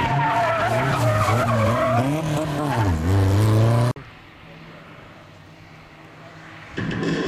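Rally car engine revving hard through a tight bend, its note dipping and rising with the throttle, with tyres squealing. About four seconds in the sound cuts off abruptly, leaving a much quieter engine hum from a car further away.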